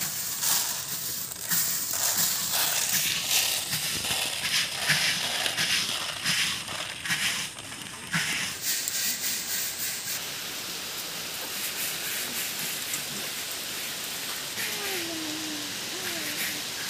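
Quick scraping and rattling of small roasted pieces being swept around a large pot with a bamboo brush, giving way after about ten seconds to a steady hiss of rain.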